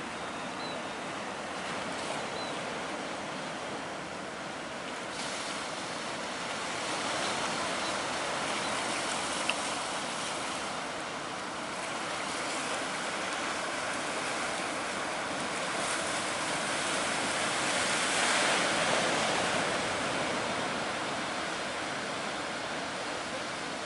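Ocean surf breaking and washing in a continuous rush that swells and eases. It is loudest about three-quarters of the way through.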